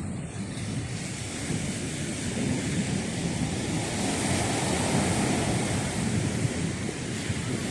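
Ocean surf washing in, with wind buffeting the microphone; the rush of water swells to its loudest about halfway through.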